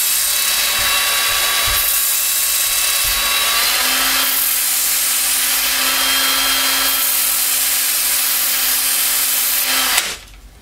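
Cordless drill spinning a 5-inch foam-backed 220-grit sanding disc while a knife edge is drawn across it, a steady motor whine with the hiss of steel being ground on the paper, reprofiling the blade to a convex edge. The pitch steps up slightly about four seconds in, and the drill stops abruptly near the end.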